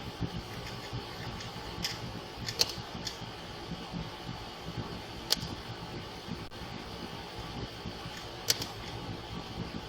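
Steady mechanical hum like a fan or air conditioning, with a handful of sharp clicks scattered through it.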